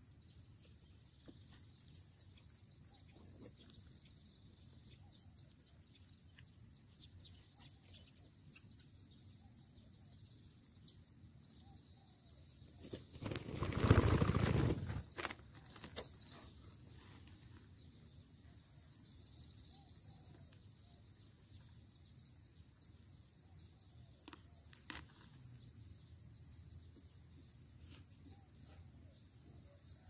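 Spotted dove's wings flapping loudly for about two seconds halfway through as it flies in and lands close by; otherwise only a faint background hiss.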